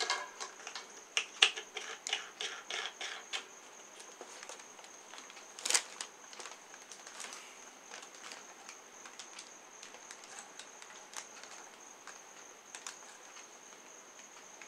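Plastic clicks, rattles and knocks of pedestal-fan parts being handled and tightened by hand: a quick run of small clicks at first, one louder knock about six seconds in, then scattered clicks.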